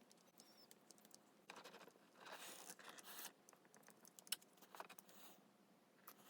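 Faint handling noises: light clicks and scrapes, with a longer scrape about two and a half seconds in and one sharper click a little after four seconds.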